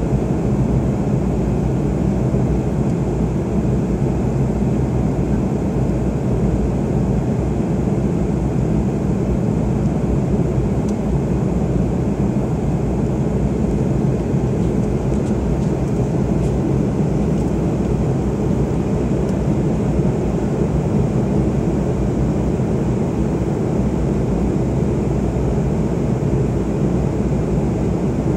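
Airliner cabin noise during the climb: engines and rushing air heard from inside the cabin as a steady, low-pitched noise that doesn't change.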